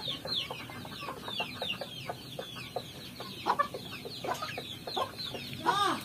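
Chicks peeping all through, a rapid run of short falling chirps, with hens clucking among them.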